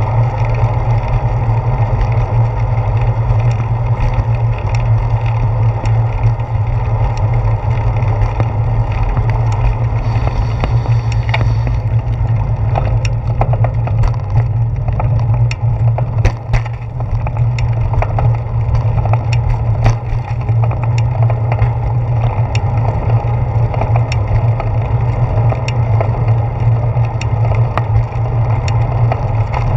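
Bicycle riding on a paved path, heard through a handlebar-mounted camera: a steady low rumble of tyres and frame vibration, with frequent small clicks and rattles from bumps, more of them in the second half.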